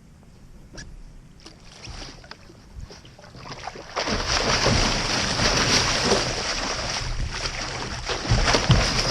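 Water sloshing and splashing with small crackles, faint at first and much louder from about four seconds in.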